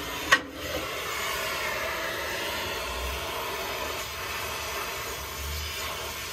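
A sharp pop about half a second in, then the steady hiss of an oxy-fuel cutting torch flame beveling the end of a steel hydraulic cylinder piston.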